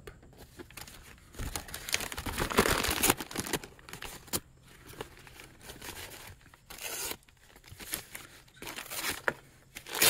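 Multi-tool knife blade slicing through material with a tearing, crinkling sound, in several bursts: a long one from about one and a half to three seconds in, then shorter ones near seven and nine seconds.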